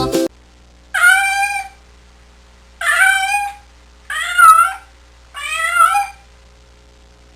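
A domestic cat meowing four times, each meow under a second long, with gaps of about a second between them.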